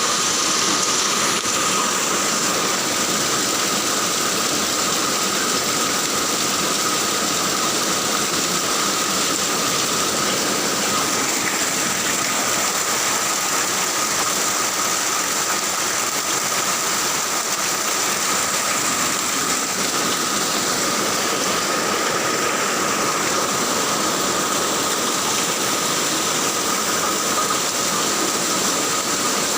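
Steady rain falling, an even, unbroken hiss with a thin, steady high whine over it.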